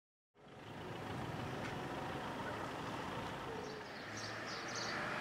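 Steady outdoor ambience of wind and lapping lagoon water, with faint high bird calls in the second half. It comes in just after a moment of silence at the start.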